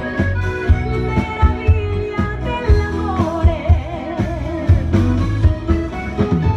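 Live dance band with accordion and drums playing under a woman singing into a microphone, the kick drum keeping a steady beat. About three seconds in she holds a long note with vibrato.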